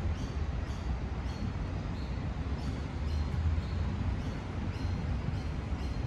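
Walking footsteps on a paved path, faint regular ticks about twice a second, over a steady low rumble of city background noise.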